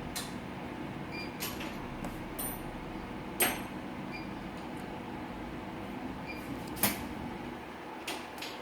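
Scattered clicks and clacks of hard parts being handled as the air-conditioning flush is set going, with two sharper knocks about 3.5 and 7 seconds in, over a steady low hum.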